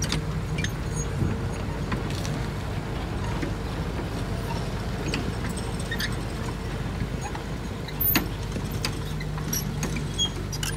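Cat 320C tracked excavator's diesel engine running steadily under load while the boom and bucket work a dirt mound, with scattered sharp clicks and knocks; the loudest knock comes about eight seconds in.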